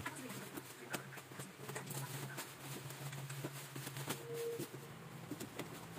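Black plastic wrapping rustling and crinkling in scattered short crackles as a cardboard box is pulled out of it.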